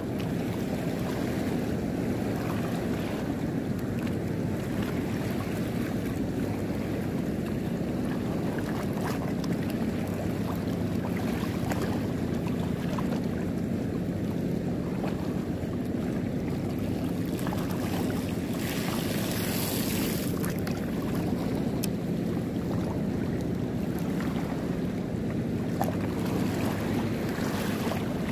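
Steady low rumble of wind and sea water under a faint steady hum, with a brief hiss about two-thirds of the way through.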